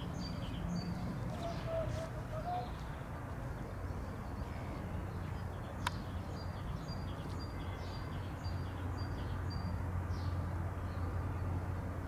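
Distant drone of a twin-turboprop ATR 72-600's Pratt & Whitney PW127M engines and propellers on approach: a low steady hum that grows stronger from about four seconds in. A small bird chirps over it in quick series of short high notes, and there is one sharp click near the middle.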